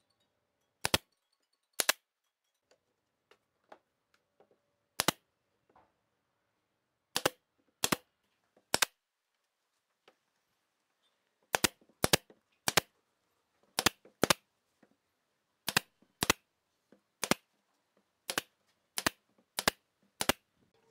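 Pneumatic brad nailer firing brads into pine trim, about eighteen sharp shots at irregular intervals, often two in quick succession less than a second apart.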